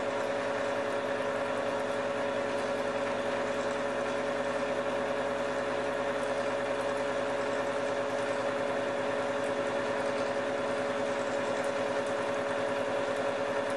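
Milling machine cutting a bevel on a steel spokeshave blade. It runs at one steady level, with a strong held tone over a constant cutting noise.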